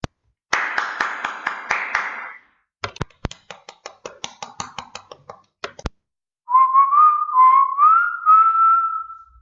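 A person whistling a short tune in a few phrases that step upward in pitch, heard in the second half. Before it come about two seconds of noisy sound with clicks in it, then a run of quick, irregular clicks or taps.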